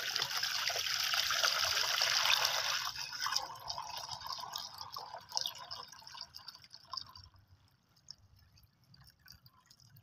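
Water poured into a plastic tub: a strong, steady pour for about three seconds, thinning to a trickle and a few drips before it stops.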